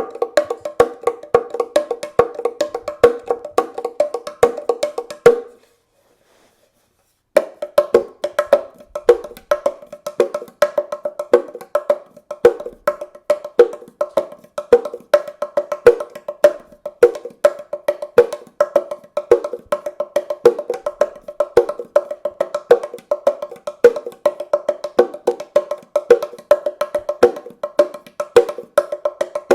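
Wooden bongo cajon played by hand in a fast, busy rhythm, its strikes ringing at a few distinct pitches. The playing breaks off for about two seconds around six seconds in, then carries on.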